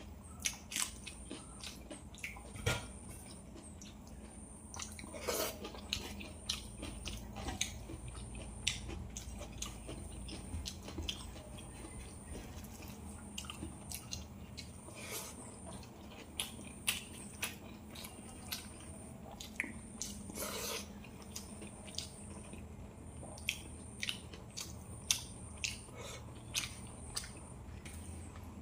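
Close-up eating of rice and fish curry: wet chewing and lip-smacking with many irregular soft clicks and smacks, over a steady low hum.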